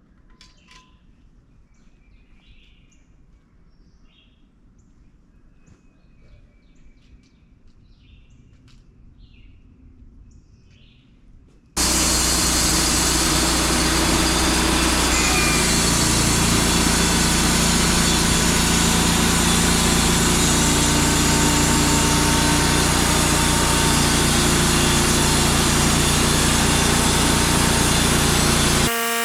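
Birds chirping over quiet for about the first twelve seconds. Then a Wood-Mizer LT35 band sawmill starts suddenly and runs loud and steady, its engine and blade making a hum under an even rushing noise.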